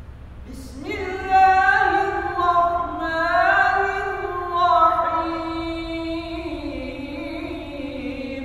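A solo voice reciting the Quran in Arabic in a melodic chant, opening with the Bismillah. The voice comes in about a second in and carries long, drawn-out phrases that slide between pitches.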